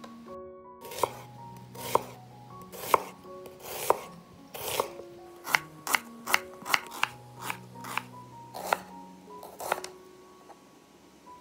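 Chef's knife slicing a red onion on a wooden cutting board, each cut ending in a sharp knock on the board: about one cut a second at first, then quicker cuts in the middle, stopping near the end. Soft background music plays underneath.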